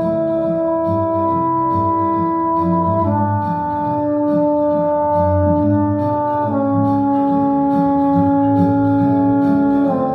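Trombone playing three long held notes of about three seconds each, each a step lower than the one before, over a play-along backing track with a busy low accompaniment.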